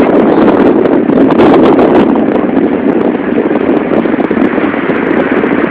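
Steady rushing noise of wind on the microphone and small waves breaking on a sandy beach, with a few short buffets in the first two seconds.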